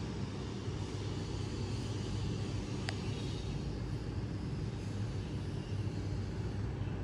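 Steady low mechanical rumble, like a motor or traffic running in the background, with one small sharp click about three seconds in.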